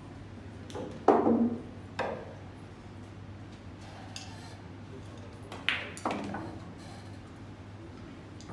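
Pool balls clacking during a nine-ball shot: sharp clicks of cue and ball strikes. The loudest comes about a second in, with another a second later, then a second pair of clacks close together near six seconds.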